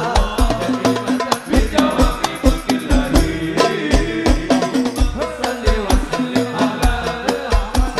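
Hadroh ensemble playing sholawat: frame drums and a deep bass drum beating a steady, driving rhythm under voices singing a devotional melody.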